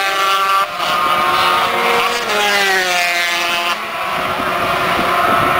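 Racing motorcycles passing on the circuit, their high engine notes falling in pitch as they go by and rising again between gear changes, several bikes overlapping.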